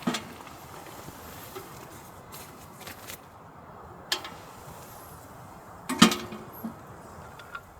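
Camping gear being handled during tent set-up: scattered, irregular knocks and clicks over a faint steady hiss, the loudest a thud about six seconds in.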